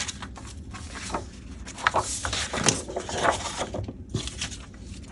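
Magazine paper rustling and crinkling as it is handled, with a few light clicks and knocks.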